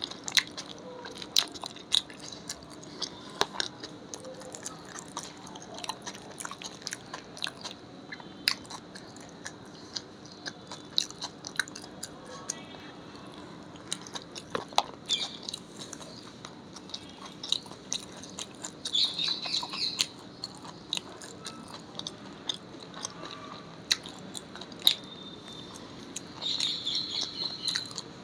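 Close-up eating sounds: chewing and biting, with irregular crisp clicks and crunches, over a faint steady hum.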